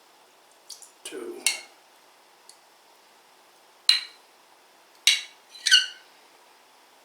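A teaspoon clinking against a bowl four times, short sharp ringing taps, as spoonfuls of pickle liquid are measured into a dressing; a man says "two" about a second in.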